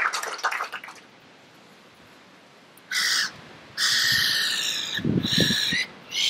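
Applause fading out in the first second, then gulls calling in three bursts: a short call about three seconds in, a longer run of calls of about two seconds, and another short call at the end.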